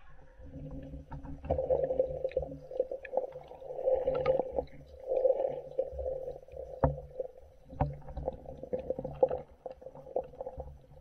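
Muffled underwater sound from a camera submerged in a cold, spring-fed trout stream: water churning and sloshing against the housing, with a few sharp knocks, the loudest about seven seconds in.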